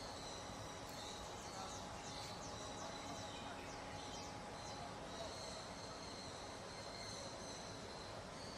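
Faint outdoor ambience: insects trilling on steady high notes, with quick high bird chirps in clusters over a low hiss.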